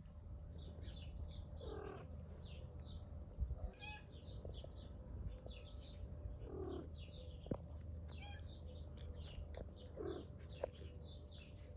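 Cats mewing softly: three short mews, at about two, six and a half and ten seconds in, over the steady twittering of small birds and a low steady hum.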